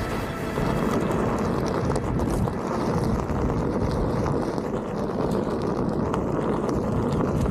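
Wind buffeting the microphone of a board-mounted or body-worn action camera while riding a Onewheel GT fast on a dry trail: a steady, low rumbling noise with no clear tones.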